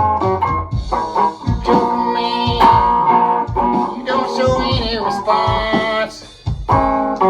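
Guitar-led honky-tonk music with a bass and drum beat, briefly dropping away about six seconds in before the band comes back in.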